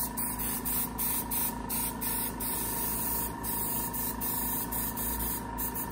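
Airbrush spraying hair pigment as a light shading coat, its air hiss pulsing on and off in quick short spurts over a steady faint hum.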